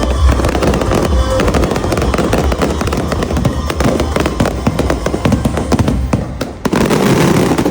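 Fireworks going off in rapid succession, many sharp bangs and crackles, over music with a heavy bass beat that fades out partway through. A dense burst of crackling comes near the end.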